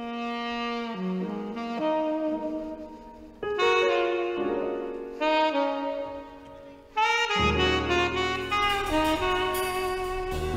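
Saxophone playing a slow melody of long held notes over keyboard chords. About seven seconds in, bass and drums come in, with cymbals.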